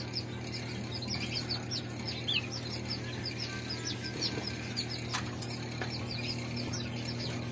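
Domestic canaries in a cage giving many short, high chirps in quick succession, over a steady low hum.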